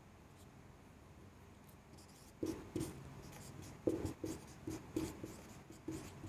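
Marker pen writing on a whiteboard: after a quiet start, a run of short strokes begins about two seconds in, about eight or nine in quick succession.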